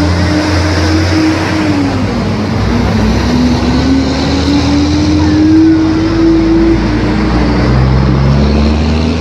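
A motor vehicle's engine running loudly, its pitch drifting slowly up and down over several seconds above a steady deep hum.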